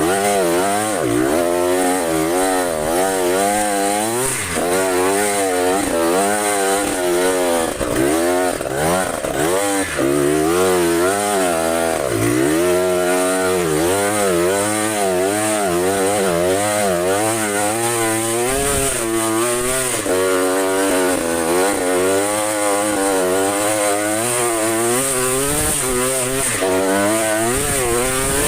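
Trail motorcycle engine being ridden off-road, revved up and down again and again, its pitch rising and falling about once a second as the throttle is worked.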